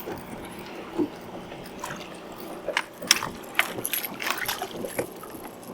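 Scattered knocks and clicks in a fishing boat, the sharpest about three seconds in, over a steady rush of wind noise.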